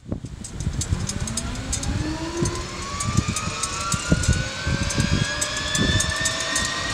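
Cessna Citation 501SP's Pratt & Whitney JT15D turbofan spooling up, its whine rising steadily in pitch over a rumbling rush of noise.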